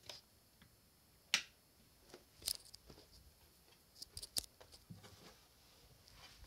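Faint room tone broken by a handful of short, sharp clicks and taps: one about a second and a half in, another about two and a half seconds in, and a close pair about four seconds in.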